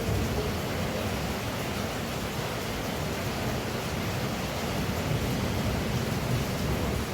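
Heavy rain pouring steadily, an even hiss with no distinct drops or breaks.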